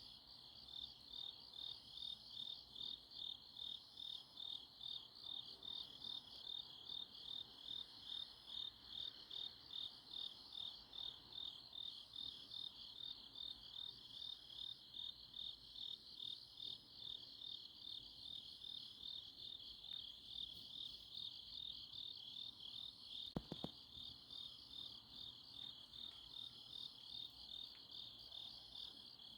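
Autumn night chorus of grass insects, crickets chirping in a steady high-pitched pulsing trill, about two to three pulses a second. A couple of faint clicks come a little over two-thirds of the way through.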